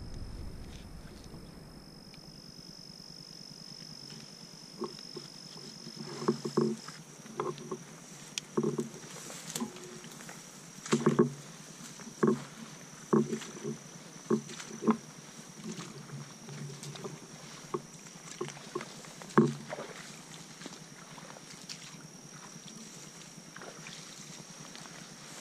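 Footsteps pushing through tall grass and brush on soft, swampy ground: irregular swishing and crunching steps, thickest from about six seconds in until near the end. A faint, steady high-pitched insect drone runs underneath.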